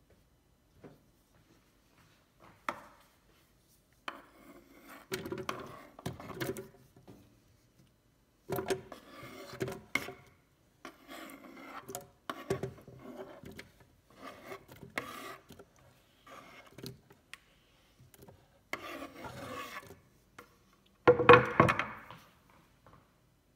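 Chopped tomato pieces being slid across a wooden cutting board and dropped into a plastic blender jar: irregular bursts of scraping with sharp knocks, the loudest burst near the end.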